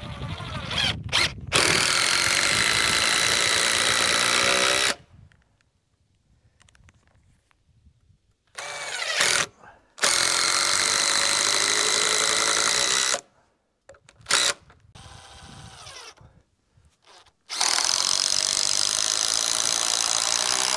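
Power drill driving long screws into framing lumber: three long runs of a steady whine of about three seconds each, each preceded by a short burst as the screw is started.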